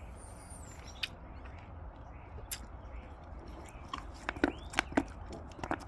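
Close-up chewing of pomegranate seeds: scattered sharp crunches and mouth clicks, a few early and a cluster in the last two seconds.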